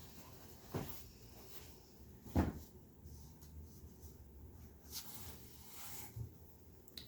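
Light handling noises: a few soft thumps and rustles, the loudest about two and a half seconds in, as clothes are handled and set down.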